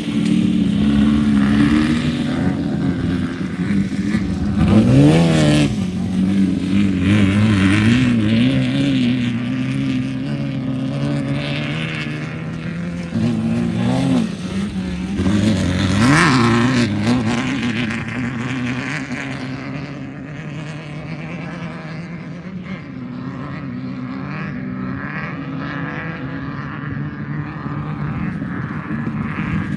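Off-road race vehicle engine revving hard and accelerating past, with sharp upward sweeps in pitch about five seconds in and again about sixteen seconds in, then settling and fading as it pulls away.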